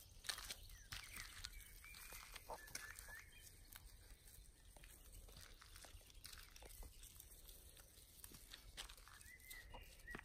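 Faint high-pitched squeaks from five-week-old Clumber Spaniel puppies at play, a few short calls about two seconds in and a quick run of them near the end, with light ticking and scratching between.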